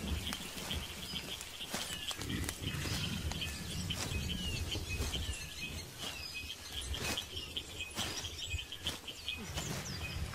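Forest ambience: a steady chain of short, high chirps from birds or insects over low rumbling, with scattered crackles and rustles.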